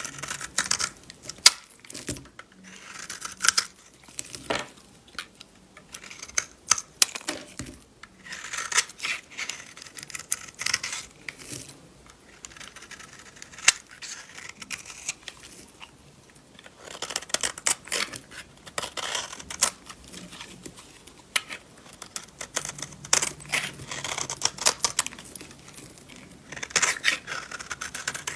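Knife cutting and scraping through dry bar soap: crisp, crackly strokes in repeated bursts of a second or two, with short pauses between.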